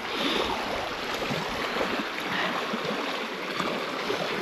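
Steady rushing noise of moving water and wind, with no distinct events.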